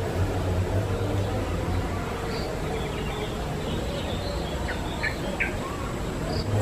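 Bird chirps: a few short, high single notes scattered through, most of them in the second half, over a steady low hum.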